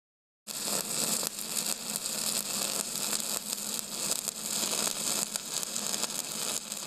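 Steady crackling hiss with a faint low hum under it, starting about half a second in.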